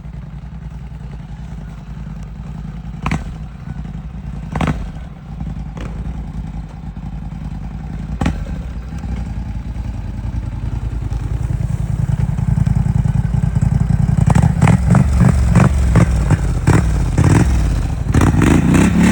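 ATV engine running, growing louder about ten seconds in as it picks up speed. Over the last five seconds there is a rapid series of knocks and rattling clatter, with a few single sharp knocks earlier.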